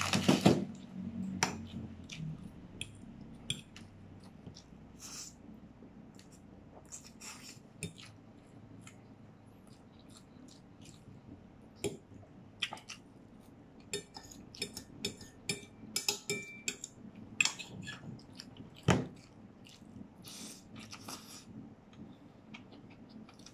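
Metal fork clinking and scraping on a ceramic dinner plate in scattered taps, with a quick run of clinks a little past halfway and one sharper clink near the end. Soft chewing between the taps.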